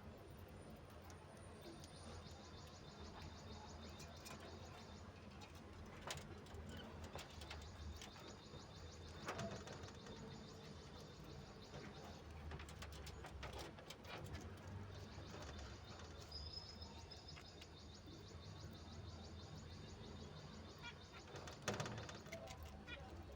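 Budgies pecking and nibbling at coriander leaves: scattered faint taps and rustles, the sharpest one near the end, with an occasional soft chirp over a low steady hum.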